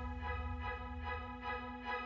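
Background music: sustained chords pulsing about twice a second.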